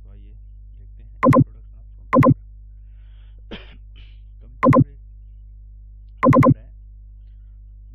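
Four loud clusters of two or three sharp clicks each, spread across several seconds, over a steady low electrical hum.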